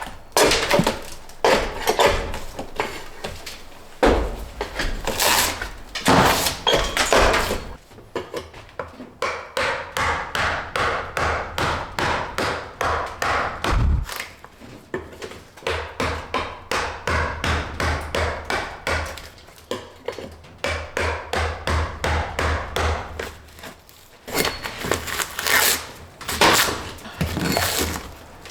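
Hammering on wood: a long, steady run of strikes, about three a second, with scattered heavier knocks and thuds before and after.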